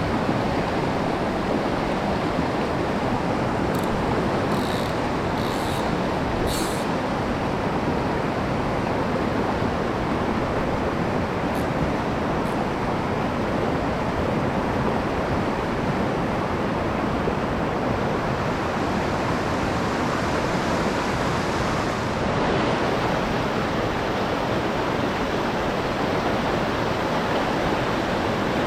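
Rushing water of a mountain stream, a loud, steady, even roar that does not change.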